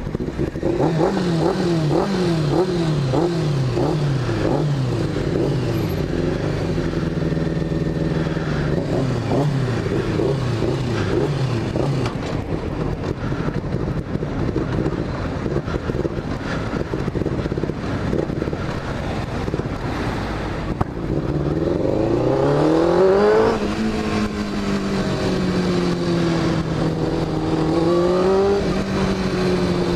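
Honda CBR600F4 sport bike's inline-four engine while riding: the revs fall away at first and run fairly level, then climb steeply about two-thirds of the way through, drop suddenly at a gear change, and rise again near the end.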